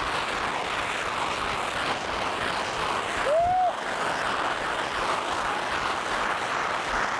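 Many unicorn ground fountain fireworks burning at once: a steady, dense hiss of spark jets. A short rising-then-falling tone stands out about three seconds in.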